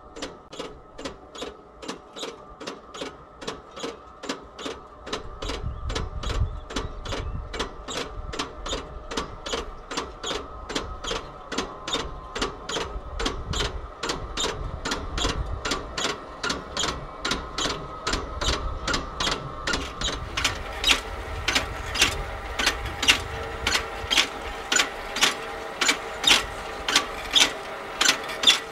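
FarmDroid FD20 solar-electric field robot driving slowly through the crop rows: a steady electric-drive hum with a regular mechanical click about twice a second. The clicks get louder about two-thirds of the way through.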